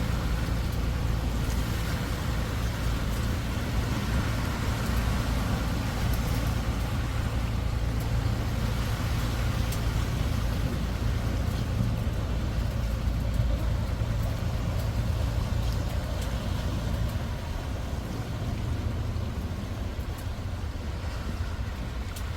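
A motor engine running steadily with a low drone that eases slightly near the end.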